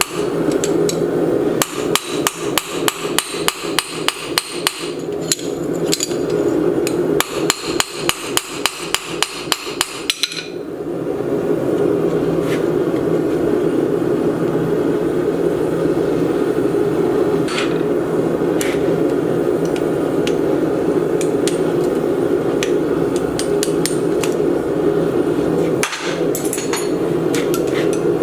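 A small cross-pein hammer rapidly striking steel, about four blows a second, peening over 3/16-inch cold-rolled round-stock hinge pins; the blows stop about ten seconds in. A loud steady running noise continues after that, with a few light clicks.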